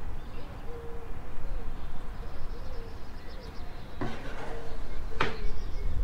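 Bamboo cutting board set down on a table, with two sharp knocks about four and five seconds in. Under the knocks are a steady low rumble and a soft held tone that wavers now and then.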